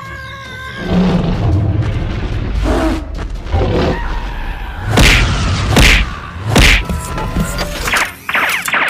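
Cartoon fight sound effects over background music, with three loud impact booms in quick succession about five to seven seconds in.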